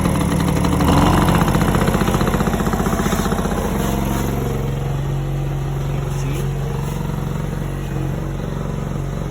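Small Tiger petrol generator engine running just after being started, tested with its newly replaced capacitor. It runs loudly and settles into a steadier note about four seconds in.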